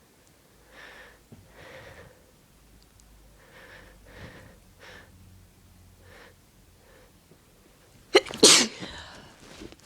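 A person's breath catching in about seven short, faint gasping breaths as a sneeze builds, then one loud, sudden sneeze about eight seconds in.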